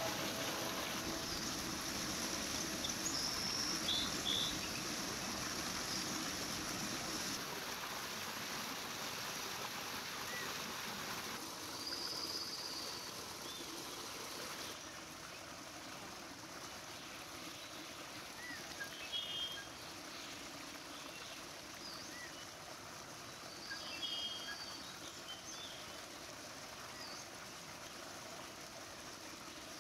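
Running water of a stream, with water pouring from a spring spout, as a steady rushing sound. Short bird chirps come through now and then.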